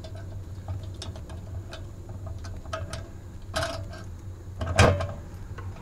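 Metal latch clamps on a dust collector's collection bucket being worked open by hand: scattered light clicks and taps, with two louder metallic clacks that ring briefly, about three and a half and five seconds in, over a steady low hum.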